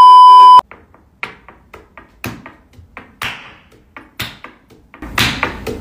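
A loud, steady 1 kHz test-tone beep of a colour-bars glitch transition, cutting off after about half a second. Faint scattered clicks and taps follow, about one a second, until the sound grows busier near the end.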